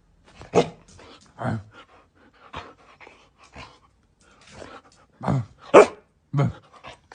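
A dog barking in short, separate barks at an uneven pace, with the loudest barks bunched near the start and again in the last two seconds.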